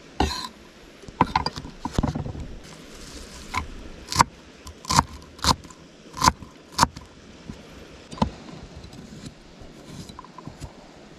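Kitchen knife chopping on a wooden cutting board: sharp knocks of the blade striking the board as spring onions and chillies are cut, irregular at first, about two a second in the middle, sparser near the end.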